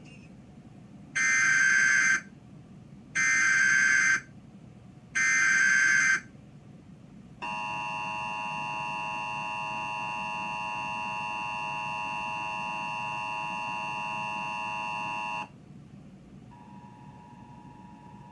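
Emergency Alert System SAME header: three one-second bursts of digital data tones, about two seconds apart, opening the National Periodic Test alert. They are followed by the EAS two-tone attention signal, which holds steady for about eight seconds and cuts off. A fainter steady tone comes back near the end.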